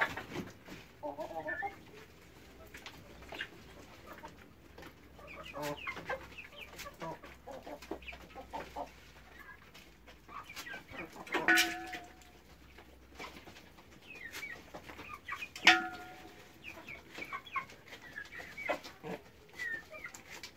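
Chickens clucking as they feed on scattered greens, with two louder calls near the middle.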